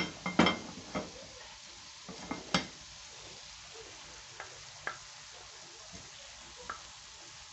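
A glass serving dish set down on the metal grate of a gas stove with a sharp clink, the loudest sound, followed by several knocks as the iron tawa is lifted and tilted over it. A spatula then scrapes cooked chicken liver off the tawa into the dish with a few lighter clicks, over a faint steady sizzle from the hot tawa.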